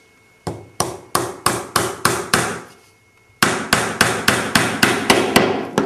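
Hammer tapping nails into a wooden box frame: about seven steady taps, roughly three a second, a short pause just before halfway, then about nine more.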